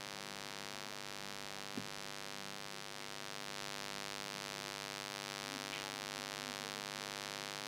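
Steady electrical mains hum with many overtones, with a single short click about two seconds in.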